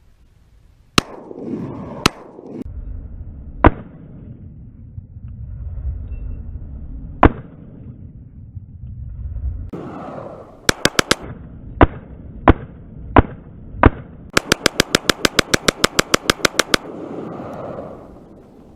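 AR-15 pistol with a 7.5-inch barrel firing: several single shots a second or more apart, a quick burst of three, four evenly spaced shots, then a fast string of about twenty shots in under three seconds.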